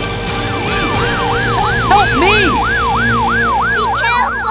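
Cartoon siren sound effect, a rapid wail swooping up and down about three times a second, starting about half a second in, over a low steady background hum.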